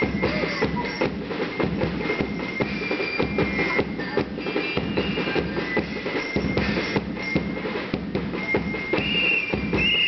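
Music with drums keeping a steady beat.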